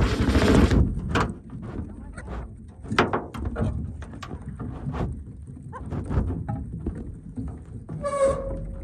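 Chickens pecking feed off a wooden ramp: a string of irregular sharp taps on the wood, with a rustling burst at the start and one short chicken call about eight seconds in.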